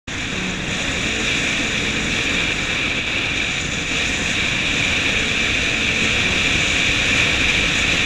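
Steady wind rush and road noise from a car driving at speed, heard by a camera mounted outside on the car's body beside the side mirror.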